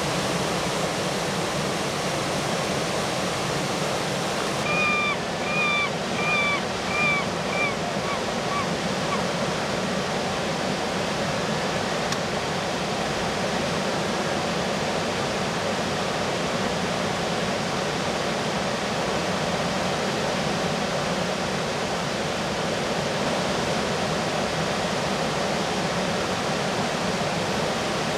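Rushing river rapids, a steady roar of water. About five seconds in, a gull gives a series of about seven short calls, roughly two a second, fading away.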